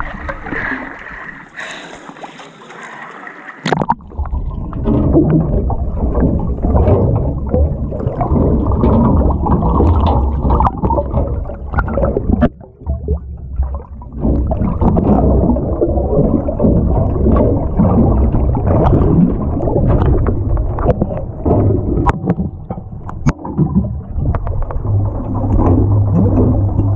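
Splashing water at the surface, then from about four seconds in the muffled, heavy sloshing and bubbling of water heard underwater, with a constant low rumble.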